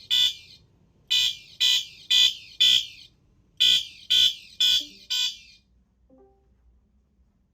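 System Sensor SpectrAlert Advance CHSR fire alarm horn sounding a code 4444 coded signal: high-pitched horn blasts in groups of four, about two a second, three groups, stopping about five and a half seconds in.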